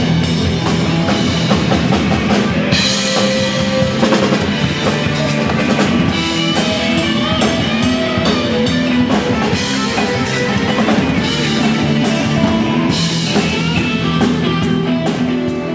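Rock band playing with drum kit, guitar and bass; the cymbals get brighter about three seconds in and ease off about three seconds before the end.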